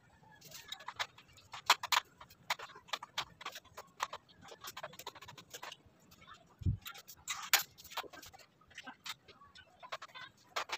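Irregular clicks and taps of a wooden crib's frame and its fittings being handled and worked on by hand, with one dull thump about two-thirds of the way through.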